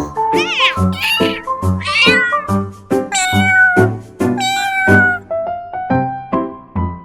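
Domestic cat meowing about five times over the first five seconds, the last two meows longer and drawn out, over background music with a steady beat.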